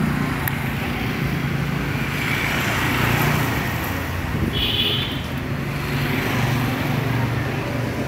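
Steady road traffic noise: a continuous low rumble of passing motor vehicles. A brief high-pitched tone sounds about four and a half seconds in.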